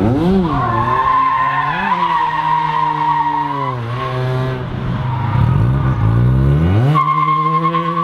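A drifting car's engine revving up and down, with tyres squealing as the car slides. The revs drop away about four seconds in, climb steeply just before seven seconds, then hold high under a steady squeal.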